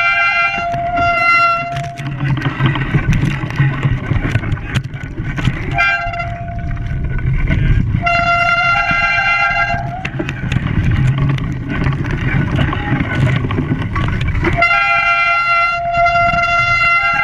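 A loud two-note chord horn blowing in four blasts, the last long, over a low rumbling engine that fills the gaps between them.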